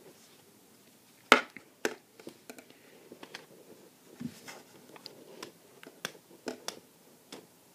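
Irregular light clicks and taps from a Samsung Galaxy Nexus phone as it is handled and operated, the sharpest about a second and a half in and a second one soon after.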